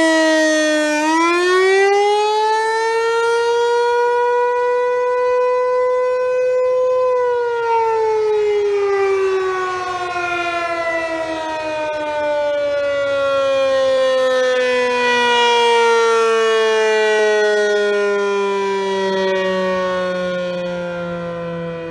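ASC Tempest T-128 rotating fire siren sounding the attack signal. Its single tone dips, climbs for about six seconds, then winds down in a long, slow falling pitch, swelling a little in loudness as it turns.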